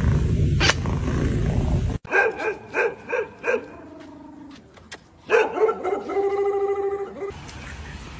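A dog barking: five quick barks, about three a second, then after a short pause a longer run of barks. Before the barking, a steady low rumble cuts off abruptly about two seconds in.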